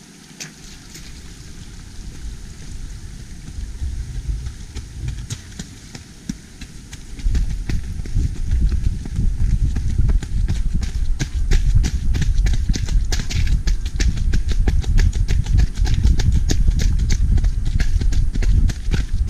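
Fast running footsteps on a stony, gravelly downhill trail, close to the microphone, over a heavy low rumble on the microphone. The steps are faint at first, then turn loud and rapid about seven seconds in.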